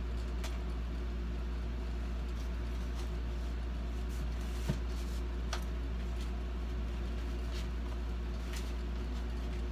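A steady low hum, with a few faint clicks and taps from foam model-airplane parts being handled and fitted together, and one sharper tick about halfway through.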